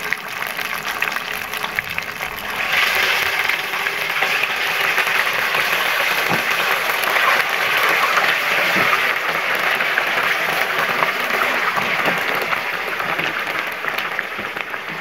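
Marinated chicken drumsticks frying in hot oil in a pan, a steady sizzling crackle that grows louder about two and a half seconds in.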